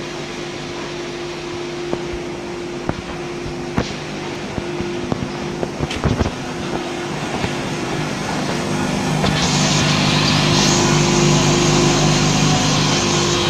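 Packing-line machinery running with a steady hum made of several tones, with scattered clicks and knocks during the first half. About nine or ten seconds in it grows louder and a high hiss joins it.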